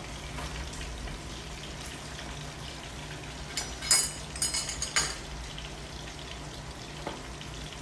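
Oil sizzling steadily as battered pork tenderloin pieces deep-fry in a stainless steel pot, with a quick cluster of metallic clinks from metal tongs against the pot a little before halfway through.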